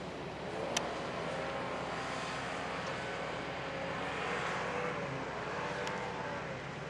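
Engine of a distant SUV running hard under load as it climbs a steep sand dune, its pitch wavering a little. There are two sharp clicks, about a second in and near the end.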